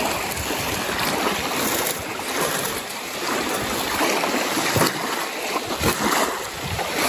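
Small lake waves washing steadily onto a sandy beach, with a few brief splashes in the shallows as a canoe is landed.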